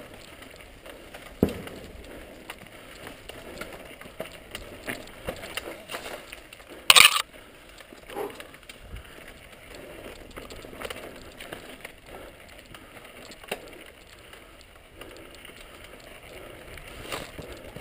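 Mountain bike descending a rocky dirt trail: tyres crunching over dirt and loose stones, the bike rattling and clicking over bumps. A sharp knock comes about a second and a half in, and a much louder short crack about seven seconds in.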